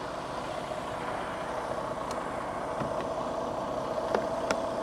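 Freightliner Cascadia semi truck's diesel engine idling steadily, with a few light clicks.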